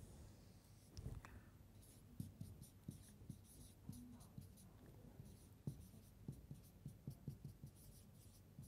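Faint whiteboard marker strokes on a whiteboard: many short scratches and taps as a circle is drawn and block capital letters are written.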